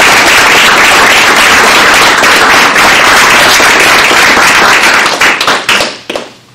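Small audience applauding, dense and steady, then dying away near the end.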